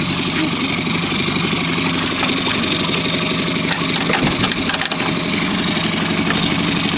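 Outboard motor idling steadily with an even, rapid putter.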